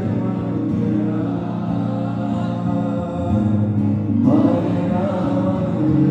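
A man sings a slow melody of long held notes live into a microphone, over guitar accompaniment; the music grows louder and brighter about four seconds in.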